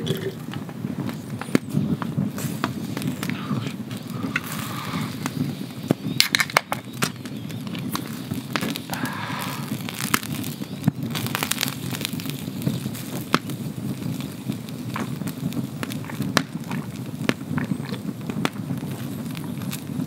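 Wood campfire crackling, with sharp pops and snaps scattered irregularly throughout.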